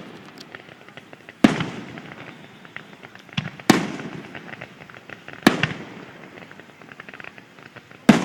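Aerial fireworks shells bursting: four loud booms about two seconds apart, each trailing off, with lighter crackling between them.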